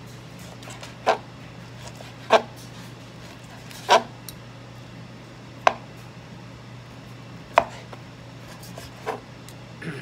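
Kitchen knife cutting cooked pork held down with a fork, each cut ending in a sharp knock; six knocks, spaced a second and a half to two seconds apart.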